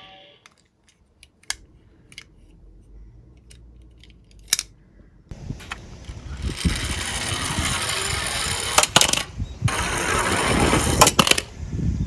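A few light clicks of toy cars being handled, then a small toy garbage truck's wheels rolling down a wooden slope, a steady rattling rumble from about halfway through with several sharp knocks, and it ends tipped over on its back.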